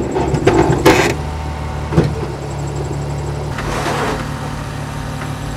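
Off-road 4x4's engine running steadily at low revs, with clattering knocks in the first second and a single sharp thump about two seconds in.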